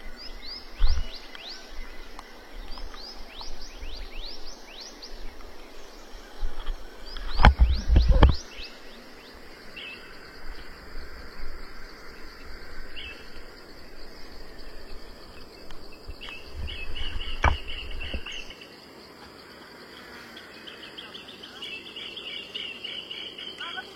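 Birds calling in a series of quick, falling chirps, then a buzzing insect trill that comes and goes in the second half. A loud low thump breaks in about eight seconds in, and a sharp click comes a little past halfway.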